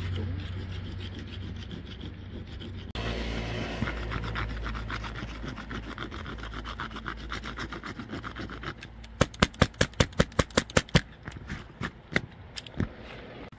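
Fast rasping, scraping strokes over a steady low hum. About 9 seconds in they give way to a quick run of about fifteen sharp taps, followed by two lone taps.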